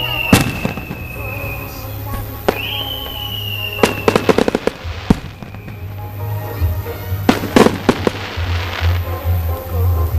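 Aerial fireworks: a whistling shell's tone sliding slowly downward, then sharp bangs with quick rattles of crackling bursts about four seconds in and again at seven to eight seconds.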